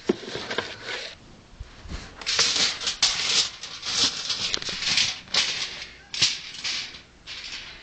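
Aluminium foil crinkling and rustling as it is handled and pressed flat, in a run of irregular crackly bursts.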